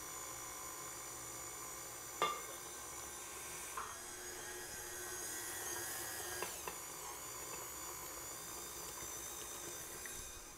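KitchenAid stand mixer motor running steadily with a high whine as the paddle beats eggs into choux pastry dough in a glass bowl. A light knock about two seconds in.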